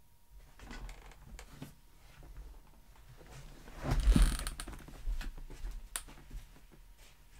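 Gaming chair creaking and clothing rustling as a person shifts and gets up out of the chair. The loudest bout of rustling comes about four seconds in, and a single sharp click follows near six seconds.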